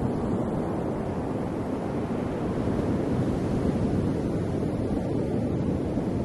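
Ocean surf washing continuously: a steady, deep rush of water without separate wave crashes standing out.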